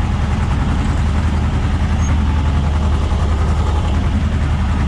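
Farm tractor's diesel engine running steadily under load, heard from inside the cab as it pulls a potato ridger through the rows; a deep, even hum with no change in speed.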